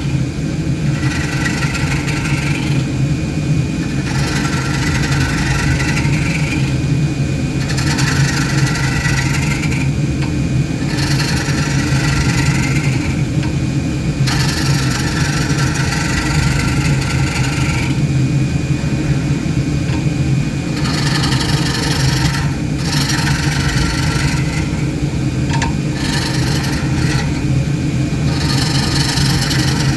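Wood lathe motor running steadily while a hollowing tool cuts into the spinning wood, the cutting noise coming and going in repeated passes a second or two long, with a pause of a few seconds about two-thirds of the way through.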